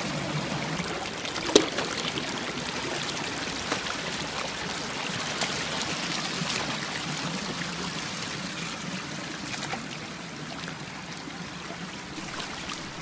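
Stream water running and splashing steadily, with a few brief knocks, the sharpest about one and a half seconds in.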